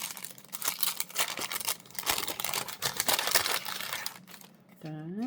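Packaging crinkling and rustling in irregular bursts as it is handled and opened to get at an enamel pin. Near the end there is a short vocal sound that rises in pitch and then holds.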